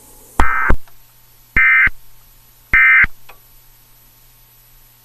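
Three short, loud digital data bursts about a second apart: the Emergency Alert System end-of-message (EOM) code that closes an alert broadcast.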